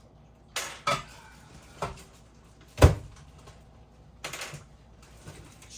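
Knocks and clunks of a plate being handled and a microwave oven's door being worked: about five separate hits, the loudest nearly three seconds in, then a short rattling clatter past the four-second mark.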